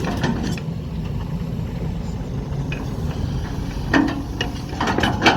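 Kobelco SK200 Super excavator's diesel engine running steadily, with a couple of short clanks about four and five seconds in.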